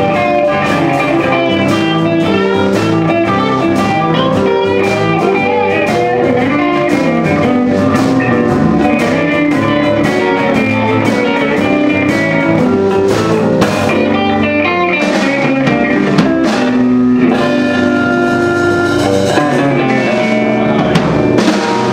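Live electric blues band playing: electric guitars over keyboards, bass and drums.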